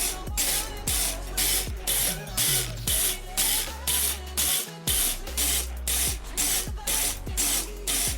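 Background music with a steady beat: crisp hi-hat or clap hits about twice a second over a deep sliding bass line.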